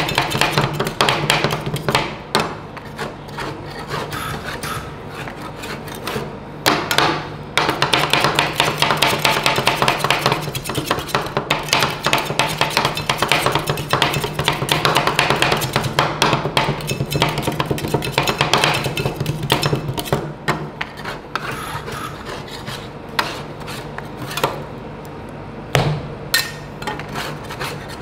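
Metal spatulas chopping and scraping ice cream mixture on a frozen cold plate: rapid, uneven taps of the blades on the steel and rasping scrapes, over a steady low hum.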